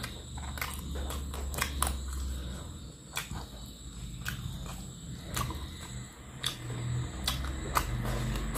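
Close-up chewing and mouth smacking on a mouthful of fish and rice, with irregular wet clicks a few times each second, over a low steady hum.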